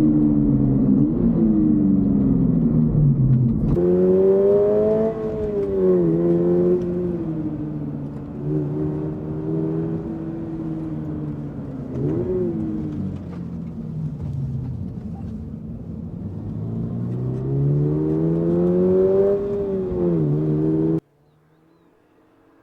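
Toyota GR86's flat-four boxer engine under way, its note rising and falling through the revs, with a quick throttle blip about midway. It cuts off suddenly a second or two before the end.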